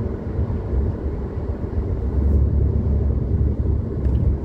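Steady low rumble of a car being driven along a road: engine and tyre noise heard from inside the cabin.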